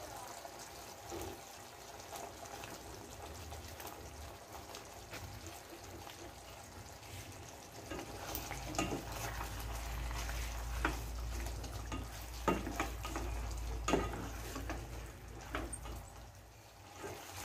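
Pork humba's soy-and-pineapple sauce simmering and sizzling in a pot, with a few sharp clicks and scrapes of a utensil against the pot as salted black beans are stirred in, and a low rumble through the middle stretch.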